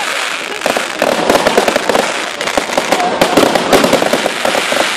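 Crackling fireworks going off at close range: a dense, continuous crackle of many small rapid bangs, with louder pops coming thick from about a second in.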